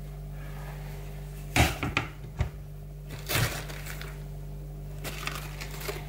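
A plastic cutting board is set down on a glass-ceramic cooktop: a few hard knocks about one and a half to two and a half seconds in, then a brief scraping rustle about three seconds in, over a steady low hum.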